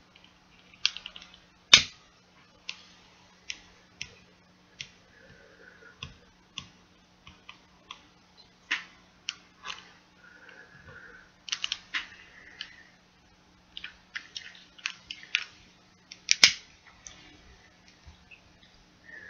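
A lighter clicked over and over: a long run of sharp, irregular clicks, with two much louder ones a couple of seconds in and near the end.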